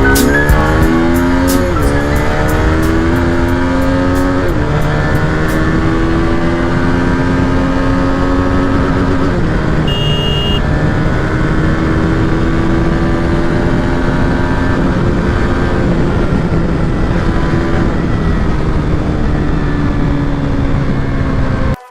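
KTM RC200's single-cylinder engine accelerating through the gears: its pitch climbs and drops back with each of three upshifts over the first few seconds, then holds a steady cruise. A short high beep sounds about ten seconds in, and the engine sound cuts off abruptly near the end.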